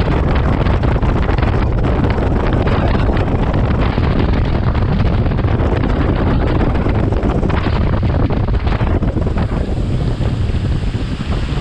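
Heavy wind rushing over the microphone of a bass boat running at speed, with the boat's motor and water rushing along the hull underneath; it eases slightly near the end.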